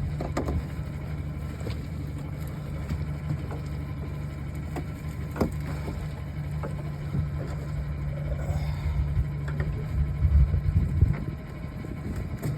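Boat motor running steadily with a low, even hum, with scattered knocks and clicks over it.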